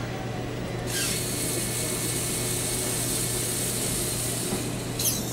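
Small electric gearmotors on a hobby robot whirring as its arm swings down and it creeps forward to set a soda can on a box. The whir comes in about a second in, and there is a brief sharp click near the end.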